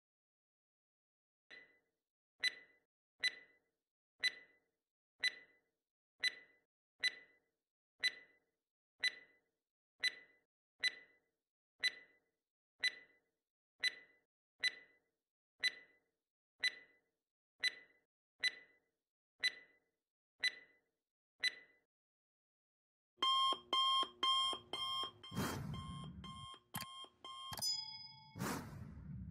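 Quiz countdown-timer sound effect: a clock-like tick about once a second for some twenty seconds, then, after a short pause, an alarm-clock-like ringing for about four seconds signalling that time is up. A short sound effect follows near the end.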